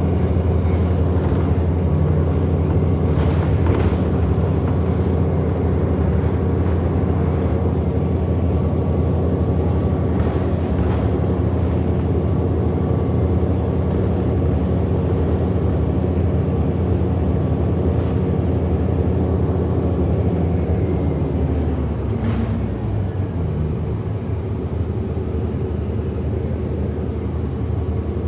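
2008 Orion VII NG hybrid city bus heard from inside the cabin while it drives: a steady low drone from its drivetrain with a faint steady whine above it and occasional rattles. About three quarters of the way through, the drone drops in pitch and gets slightly quieter as the bus eases off.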